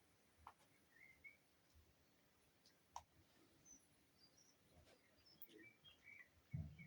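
Near silence with a few faint, short bird chirps and scattered light clicks, and a dull low thump near the end.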